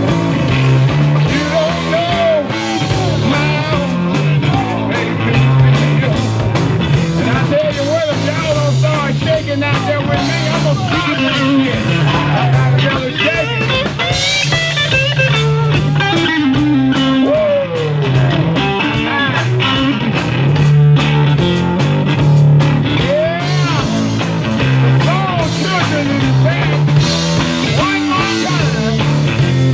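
Live soul-blues band playing: electric guitar lead with bending notes over bass guitar and a drum kit, at a steady loud level.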